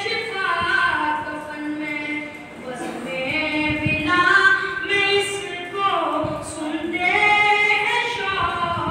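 A boy singing a devotional recitation solo into a microphone, in phrases of long held notes that bend up and down, with short breaks for breath between phrases.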